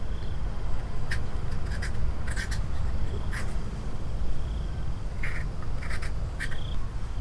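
Short scraping strokes of a small knife peeling a red-skinned fruit, a few at a time, over a steady low rumble. Faint bird calls come and go in the background.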